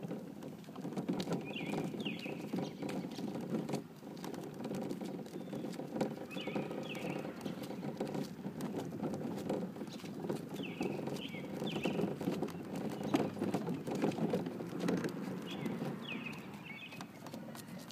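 Hard plastic wheels of a red toy wagon rolling over rough asphalt: a continuous rumble with a dense rattling patter.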